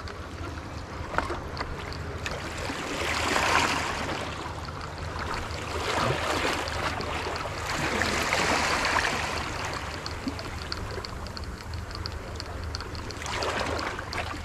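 Sea water washing in, swelling and fading about three times as waves come in, over a steady low rumble.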